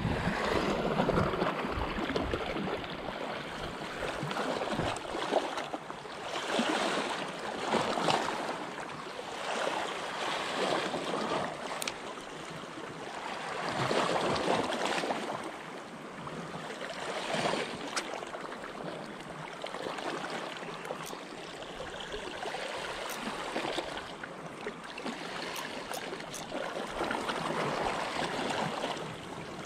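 Small sea waves washing and lapping against shoreline rocks, swelling and easing every second or two, with a few faint clicks along the way.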